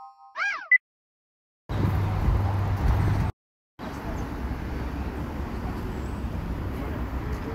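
Steady outdoor traffic rumble in two stretches, broken by a brief cut to silence a little past the middle. A short rising sound effect plays at the very start.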